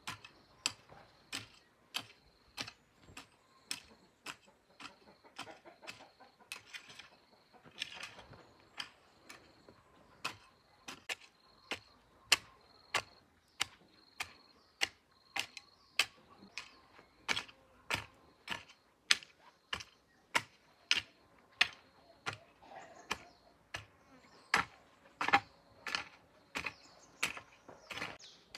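Long-handled hoe chopping into dry garden soil: a steady run of sharp strikes, about two a second.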